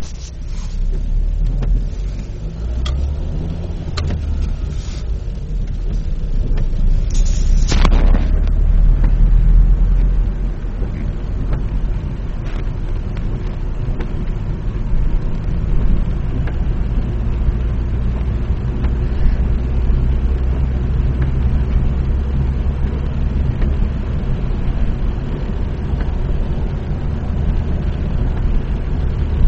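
Inside a car driving on a wet road: a steady low rumble of engine and tyres with tyre hiss from the wet surface. There is a brief louder rush about eight seconds in.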